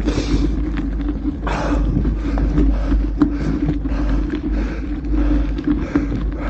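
Mountain bike ride on a gravel forest road: tyre noise and scattered clicks and rattles from the bike, over a deep wind rumble on the microphone.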